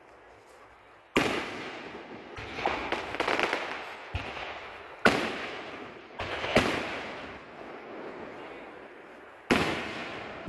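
Aerial fireworks shells bursting: four big bangs, each trailing off in a fading rumble, with a run of smaller pops in between about three seconds in.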